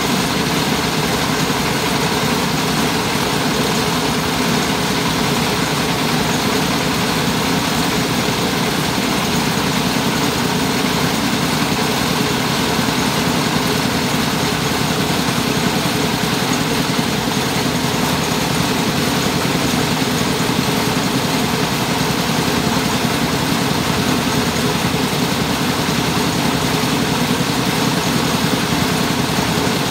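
Engine-driven mobile rice huller running steadily as it mills grain: a constant, dense mechanical noise with no change in speed.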